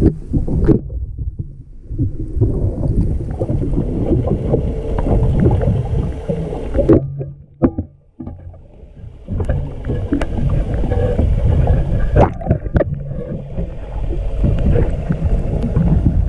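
Muffled underwater rushing and rumbling from a swift current flowing past an action camera held under a boat's hull, with scattered knocks and clicks against the camera. It drops much quieter for a couple of seconds about halfway through, then the rush returns.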